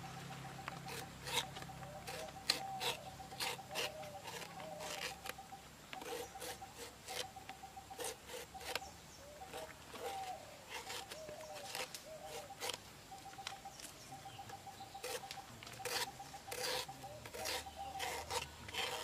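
Knife slicing through a raw banana flower core in quick, irregular strokes, each cut a sharp crisp click. A rapid pulsed chirping call runs behind it.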